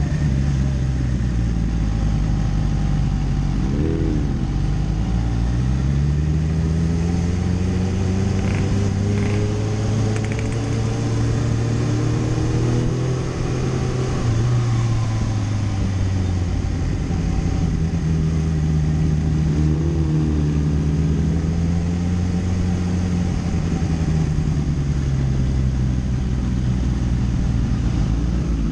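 Kawasaki inline-four sportbike engine heard from the rider's seat at low road speed, the revs rising slowly and dropping back, with a couple of quick throttle blips about four seconds in and again near the twenty-second mark.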